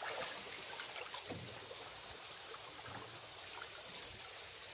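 A shallow rocky stream running steadily, with feet wading through the water and a few faint low knocks.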